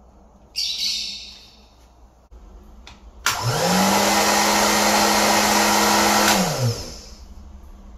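Handheld hair dryer switched on and off by a self-powered wireless wall switch: a click about three seconds in, then the motor spins up and runs with a steady rush of air for about three seconds before cutting off and winding down. A short scraping hiss about half a second in.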